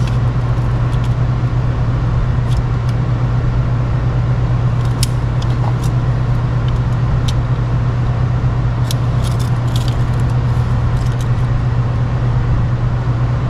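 A steady low machine hum throughout, with scattered light metallic clicks and taps as a tape measure and tools are handled against a VW transaxle's throw-out bearing cross shaft.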